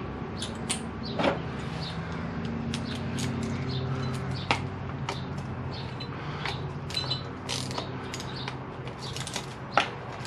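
Socket ratchet clicking in short, irregular runs, with light metal clinks of tools, as two small 8 mm bolts are undone from under the motorcycle's rear hub. A steady low hum runs underneath.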